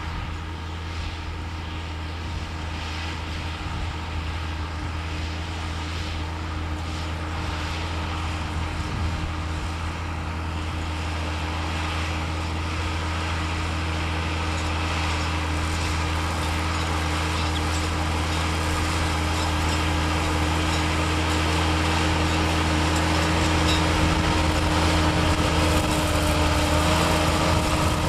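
Massey Ferguson 7495 tractor's diesel engine running steadily under load while ploughing, growing gradually louder as it comes closer.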